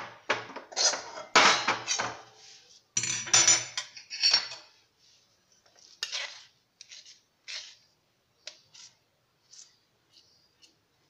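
Metal spoon scraping and knocking against a pan and a steel thali as thick, sticky peanut-and-caramelised-sugar chikki mixture is scraped out onto the plate and pushed together. A dense run of loud scrapes and clatters in the first few seconds, then sparser light taps.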